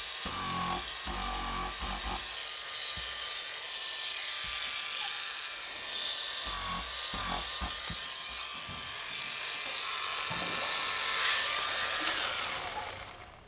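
Small hand-held mini sander running at high speed, sanding dust nibs out of cured clear coat on a car body panel; its steady whine wavers a little as it is pressed to the paint. It winds down and stops near the end.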